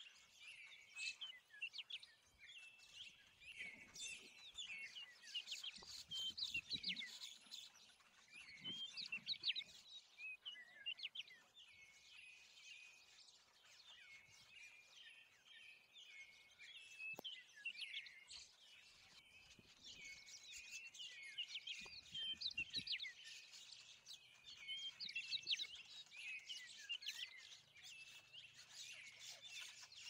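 A chorus of small birds chirping and twittering, many short quick calls overlapping without pause, louder in patches.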